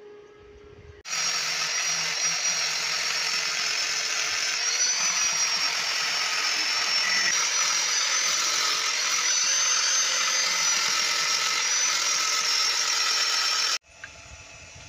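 Electric angle grinder running and grinding steel, a loud steady rush with a high whine that wavers slightly in pitch under load. It starts about a second in and cuts off abruptly near the end.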